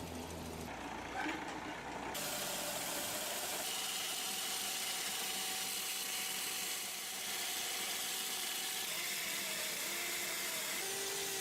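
Sawmill machinery running: a steady mechanical noise with faint steady whining tones.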